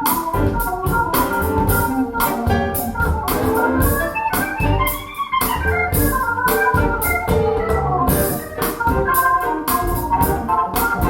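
Music with sustained keyboard chords and a steady drum beat, played back through a pair of Bowers & Wilkins 607 bookshelf speakers for a sound demo.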